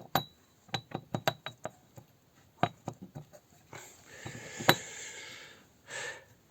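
Steel differential gears and thrust washers clinking and knocking against each other and the cast-iron housing of a Lada Niva transfer-case centre differential as they are handled and swapped, with a quick run of clinks at first and a longer scraping noise about four seconds in, broken by one sharp knock.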